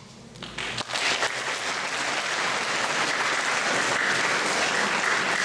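Audience applauding: the clapping starts about a second in and then holds steady.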